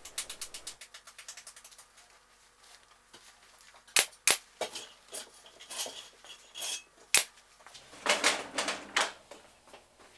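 Sharp, single snaps of a fastening tool as headliner cloth is fixed to the wooden bow of a carriage surrey top: two close together about four seconds in and another about seven seconds in. Light ticking and handling clicks come at the start, and a denser run of clicks near the end.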